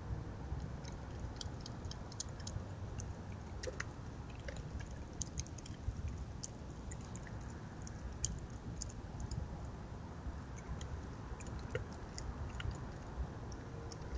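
A raccoon clinging to and working at a hanging metal tube bird feeder: scattered, irregular small clicks and ticks of claws and feeder parts, over a steady low rumble.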